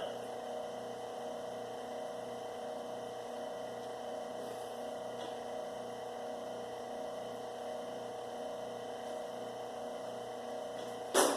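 Steady electric hum of a copper wire stripping machine's motor running, with a single sharp clack near the end.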